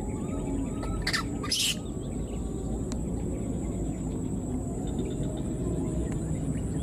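Forest background sound: a steady high-pitched whine, faint scattered chirps, and two brief noisy bursts about a second and a half in, over a low rumble.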